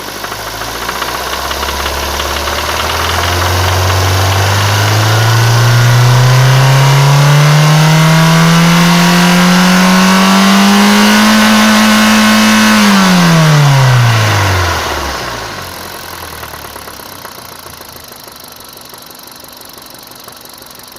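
Kia G4FC 1.6-litre four-cylinder petrol engine, which knocks around 1500 rpm, revved up smoothly and steadily for about twelve seconds, held a moment, then let fall back to idle. The rev-up is part of an oil pressure check on the knocking engine.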